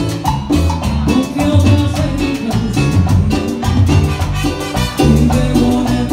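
Live cumbia band playing loudly: horns holding notes over bass, drum kit and congas in a steady dance beat.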